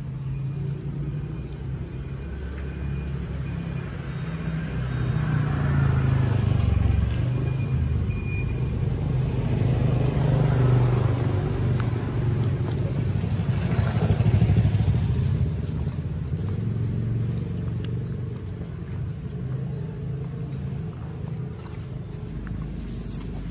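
Low rumble of passing road vehicles, swelling and fading three times.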